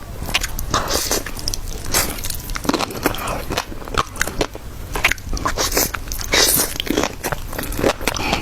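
Close-miked eating: biting and chewing food, with many small irregular crackling clicks.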